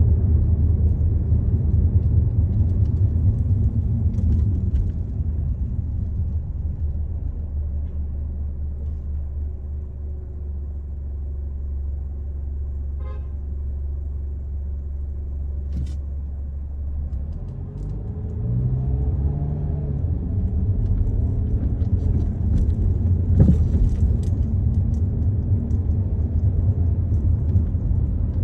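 A car driving, heard from inside the cabin: a steady low rumble of engine and road noise. It eases through the middle, then the engine note rises as the car speeds up again about two-thirds of the way through.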